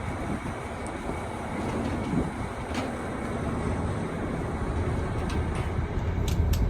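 Train running: a steady low rumble, with a few sharp clicks near the end.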